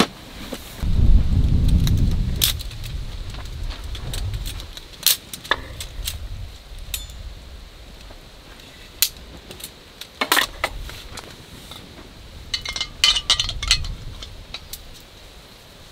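Metal clicks and clinks from a folding remote-canister gas stove being handled and unfolded, its legs and pot supports knocking and snapping into place, with a quick jingly run of clinks near the end. A low rumble about a second in is the loudest sound.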